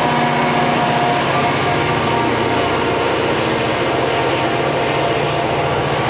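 MARC commuter train's diesel locomotive running steadily under power as the train pulls out of the station, a deep engine drone with a thin high whine above it.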